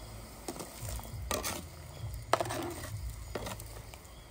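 Hard objects being handled: a few sharp knocks and a short scrape, with one louder knock a little after two seconds in that rings briefly.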